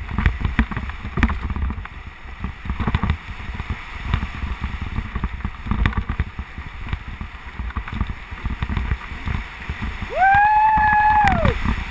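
Mountain bike descending fast over a rough dirt trail: wind buffeting the mounted camera's microphone, with tyres rumbling and the bike knocking and rattling over bumps. About ten seconds in, a held high-pitched tone sounds for about a second and a half, rising at its start and falling away at its end.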